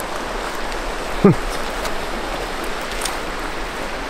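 Steady rushing of river water. About a second in, a man gives a brief vocal sound that falls in pitch.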